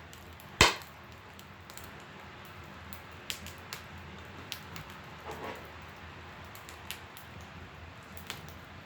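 Wood fire of mulberry and juniper crackling in a wood stove: scattered faint pops over a low steady background, with one sharp knock less than a second in.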